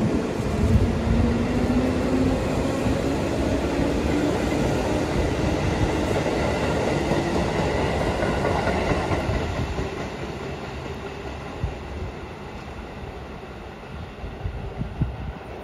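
JR West 221 series electric train pulling away from the platform: a motor whine rises steadily in pitch as it accelerates over the rumble of wheels on rail. After about nine seconds the sound fades as the train draws away.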